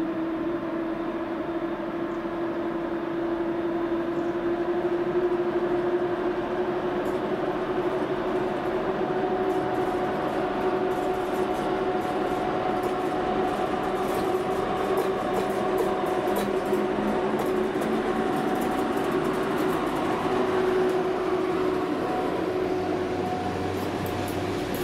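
EP07 electric locomotive hauling passenger coaches past, giving a steady two-tone electric hum that rises slightly in pitch. From about a third of the way in, rapid clicking of wheels on the rails joins it as the train rolls by.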